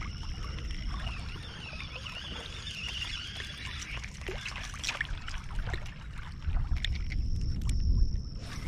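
Water sloshing and lapping around a small fishing boat, with a low rumble that swells near the end. A steady high-pitched insect buzz runs underneath, with a few small clicks.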